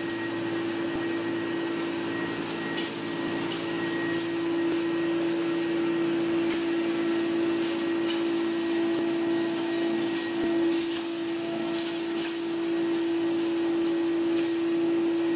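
Electric-driven processing machine running steadily: a constant motor hum with a strong single tone, over which small irregular ticks and clatter come and go.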